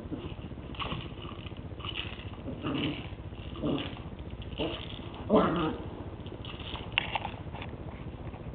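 West Highland white terrier puppy giving short whines and yips about once a second, the loudest just past the middle, with a sharp click near the end.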